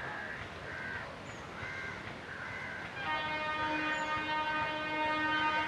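A locomotive horn sounds one long, steady blast starting about halfway through, over the rumble of a train. Crows caw several times in the first half.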